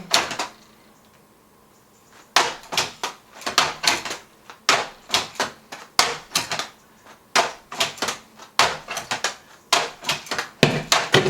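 Rapid sharp clacks and knocks in quick clusters about once a second, starting about two seconds in: balls being thrown at and striking a string-pulled magnet test contraption.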